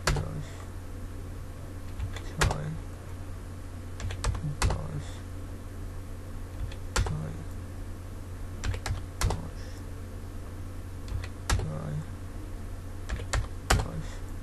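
Computer keyboard keys tapped in short, irregular clusters as numbers are typed in, over a steady low hum.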